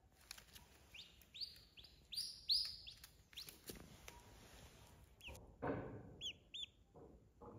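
Duckling peeping: a quick run of about seven high, short peeps, then two more a few seconds later. A brief, louder, lower-pitched sound comes just before the last two peeps.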